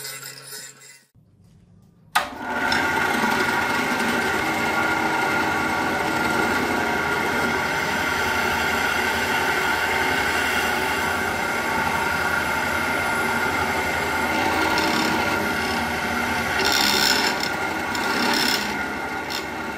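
Drill press boring into brass in a cross peen hammer's head: after a sharp click about two seconds in, the bit cuts with a steady, even grinding. In the first second the hum of a bench grinder's motor fades out.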